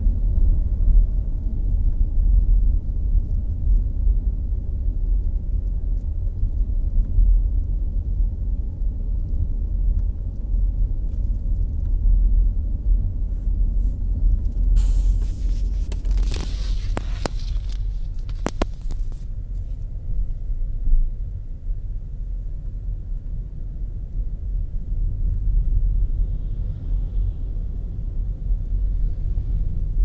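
Steady low rumble of a car's engine and tyres, heard from inside the moving car. About halfway through, a burst of hiss with a few sharp clicks lasts several seconds.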